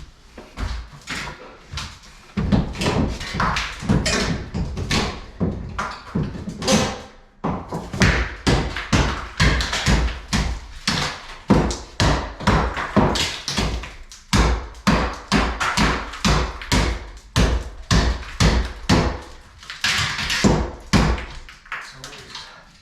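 Hammering and knocking on a wall being opened up for demolition: a long, irregular string of sharp thumps, several a second, with short pauses between runs.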